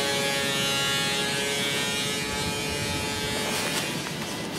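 Woodworking machine running with a steady whine over a rushing noise; the whine weakens about three and a half seconds in.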